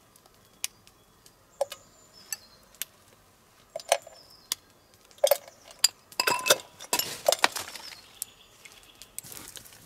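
Scattered sharp clicks and clinks, with a dense clatter of them about six to eight seconds in.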